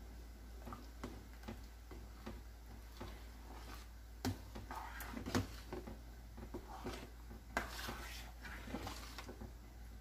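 Metal spoon and ladle stirring a thick stew in a stainless steel stockpot: faint, scattered clinks and scrapes of the utensil against the pot, the loudest about four and five seconds in.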